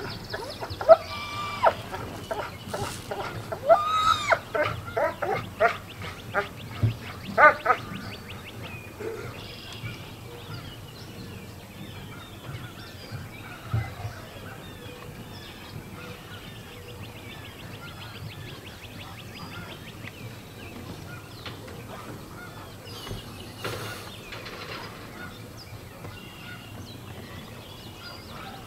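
A dog whining and yelping in short, high-pitched calls, a quick run of them in the first eight seconds or so, then only a few faint ones.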